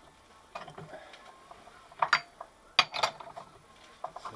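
Metal clinks and knocks in a few short clusters, from steel tools and the steel disc being handled while the disc is dialled in in the lathe chuck.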